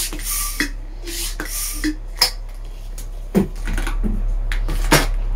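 Twisted latex balloons handled and rubbed between the hands: short squeaky rubbing at first, then a few light clicks and taps.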